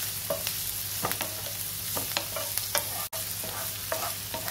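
Chopped onions sizzling in hot oil in a ceramic-coated frying pan, being sautéed until translucent, while a wooden spatula stirs and scrapes them in irregular strokes over a steady hiss. The sound drops out for an instant about three seconds in.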